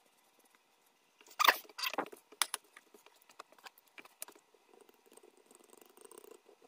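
Light clicks, knocks and scrapes of kitchen handling: a metal skewer and baked donut holes against a cast-iron donut-hole pan and plates. The sharpest knocks come about a second and a half in, with small scattered ticks after, then a faint rough rustle over the last couple of seconds.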